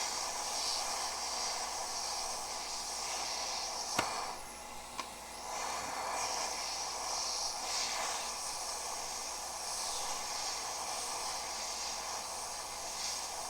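Gaoyue 850 hot air rework station blowing a steady hiss of hot air from its nozzle, driven by the unit's small internal air pump. There is a sharp click about four seconds in, and the hiss dips briefly just after it.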